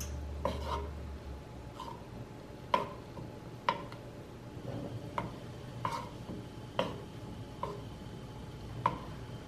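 Wooden spoon knocking and scraping against a nonstick frying pan while stirring melting butter, about ten light taps roughly once a second.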